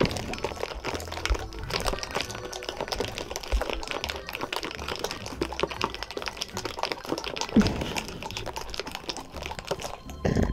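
Ice and cocktail rattling and sloshing inside a lidded glass mason jar being shaken by hand, a fast continuous clatter.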